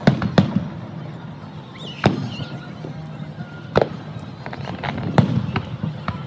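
Aerial fireworks shells bursting in the sky: several sharp booms, irregularly spaced a second or two apart.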